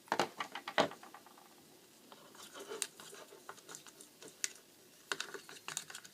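Irregular light clicks and scraping taps of a utensil stirring paint into glue in a plastic container, in clusters near the start and again from about five seconds in.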